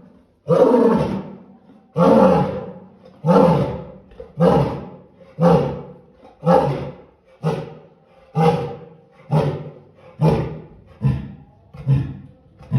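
An African lion's roaring bout: full, deep roars that shorten into a quickening run of grunting roars, about one a second, fading toward the end.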